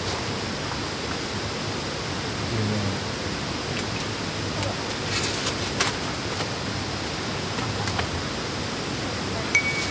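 Wood campfire burning: a steady hiss with a few sharp crackles and pops, the loudest near the end, followed by a brief high squeak.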